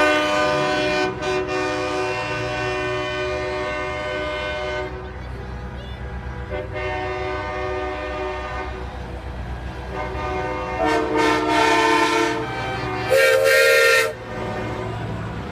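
Truck horns sounding: a long blast of several tones together for about five seconds, then two shorter blasts near the end, the last the loudest, over a steady low rumble of truck engines.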